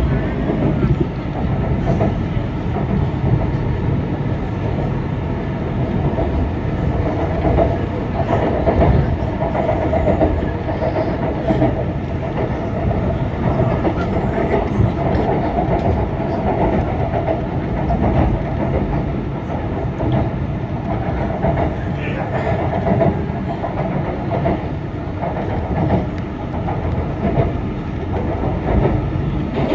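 Shanghai Metro Line 9 electric train running along the track: a steady rolling noise from the wheels on the rails with a constant mid-pitched hum through it.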